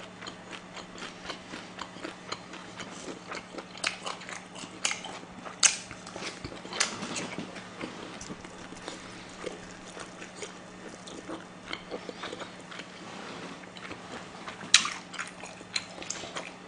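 Close-miked eating sounds: a person chewing and smacking on food, with irregular short wet clicks and a couple of louder ones about six seconds in and near the end.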